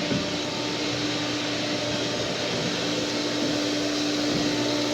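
Steady whirring drone of a running motor, with a constant hum under it.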